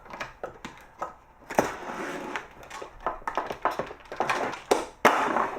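Wall-mounted Mckay metal can crusher crushing a water bottle: a run of irregular crackles and cracks, the loudest about a second and a half in and near the end.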